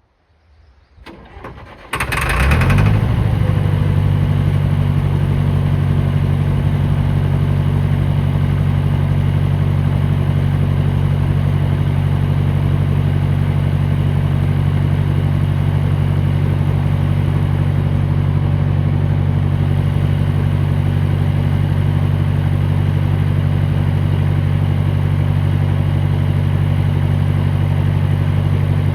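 John Deere 450 loader's engine cranking over briefly, catching about two seconds in, then idling steadily.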